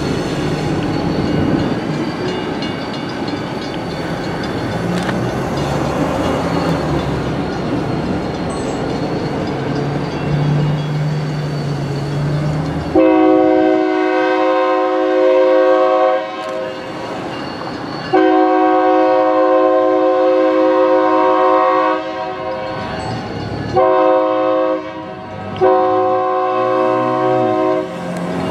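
EMD GP25 diesel locomotive rumbling past over the rails, then its Leslie RS3K three-chime air horn sounds four blasts, long, long, short and long, the standard signal for a grade crossing ahead. The horn is loud and shrill.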